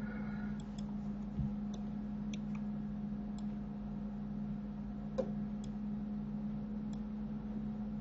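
A handful of faint, sharp computer mouse clicks spaced irregularly, over a steady low hum.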